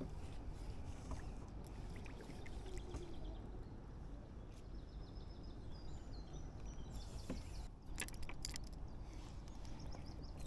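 Outdoor pond-side ambience: a steady low rumble with faint high chirps, and a few sharp clicks and knocks about three-quarters of the way through.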